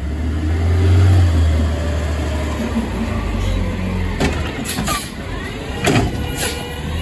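Front-loading garbage truck with a Curotto-Can automated carry can: the diesel engine pulls up loudly, easing off after a few seconds. Then a rising and falling hydraulic whine and a few sharp clanks and hisses as the can's arm reaches out to grab a cart.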